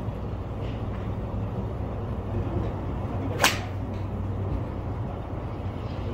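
A golf iron strikes a ball off a driving-range mat once, a sharp crack about three and a half seconds in, over a steady low hum. A few much fainter clicks of other strikes are heard as well.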